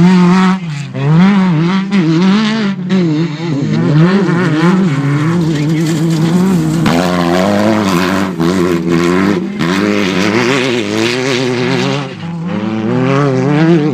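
Off-road desert race buggy's engine revving hard as it passes close by, the pitch rising and falling again and again as the throttle is worked over the rough dirt course.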